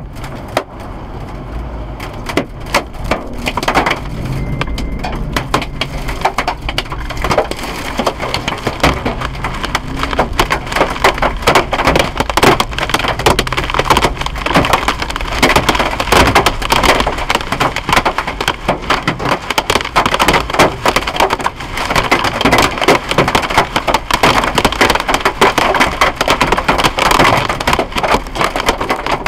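Hailstones pelting a Toyota Land Cruiser Troop Carrier's roof, bonnet and windscreen, heard inside the cabin as a dense, continuous clatter of hard cracks. The clatter grows denser and louder about ten seconds in. This is hail heavy enough to dent the roof and bonnet and crack the windscreen.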